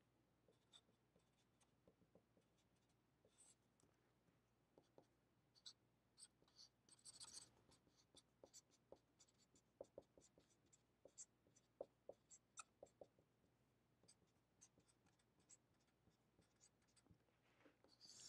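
Near silence with faint scratches and taps of a felt-tip marker writing on paper: a scatter of short strokes, most of them in the middle stretch.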